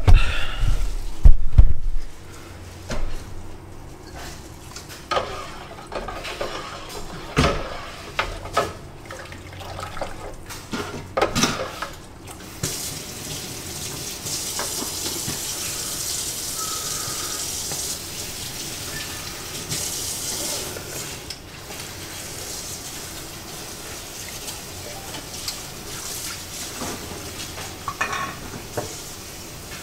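Kitchen cookware at work: a run of clinks and knocks of utensils against metal pots for the first dozen seconds, then a steady rushing hiss of water that drops lower about two-thirds of the way in.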